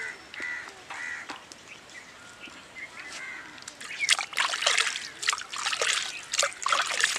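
Wet masala paste being scraped by hand out of a stone wet-grinder and rinsed out with water: wet slapping, sloshing and splattering in the stone's well, growing louder and busier about four seconds in.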